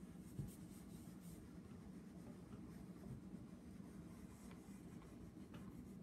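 Faint scratching of a chalk pastel stick on paper in a series of short strokes, as grass blades are drawn.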